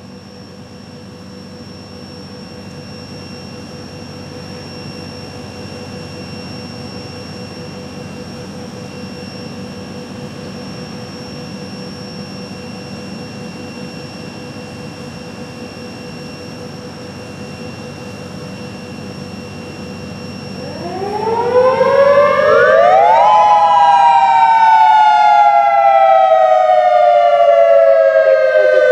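Federal Signal Modulator 3012 outdoor warning siren starting up in dual tone after about 20 seconds of steady background noise. Its pitch winds up steeply, then falls slowly as a wail, with two close tones sounding together, loud.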